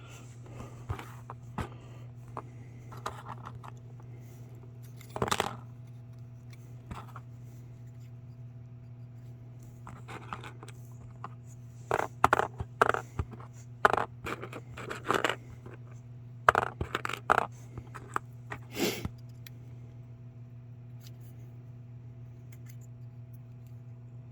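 Small plastic model parts and their packaging being handled: scattered clicks, taps and scrapes, coming in clusters, over a steady low hum.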